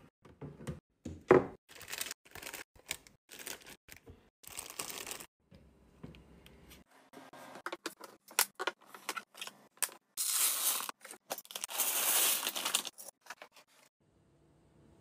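Food packaging and containers being handled and put away while restocking a fridge: a run of clicks and knocks, with longer crinkling, tearing-like stretches about ten and twelve seconds in.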